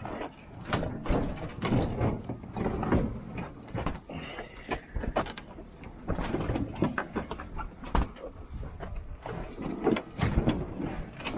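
Irregular knocks, thumps and rattles of heavy items being handled and shifted, with a run of sharp clatters.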